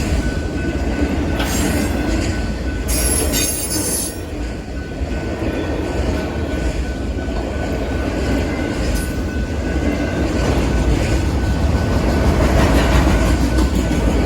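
CP freight train of auto rack cars rolling past: a steady rumble of steel wheels on rail with a thin continuous squeal and a couple of brief high screeches a few seconds in.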